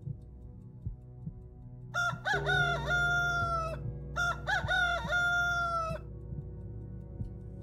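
A rooster crowing twice, each crow a short broken start followed by a long held note, over a low droning music bed with faint ticks.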